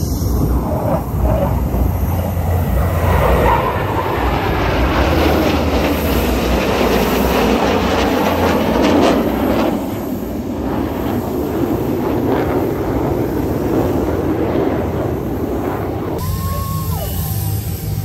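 Jet engines of display aircraft flying in formation overhead: a loud, steady rushing noise that builds through the middle and eases a little about ten seconds in.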